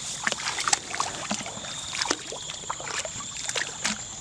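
Irregular splashes and sloshing of shallow muddy water as people wade through it and grope with their hands, over a steady thin high-pitched hum.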